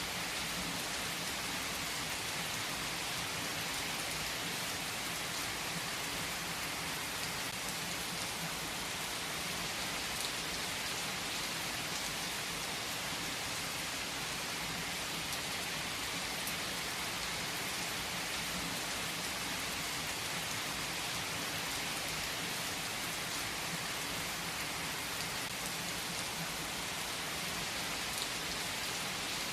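Steady rain falling, an even hiss with scattered faint drop ticks and no change in strength.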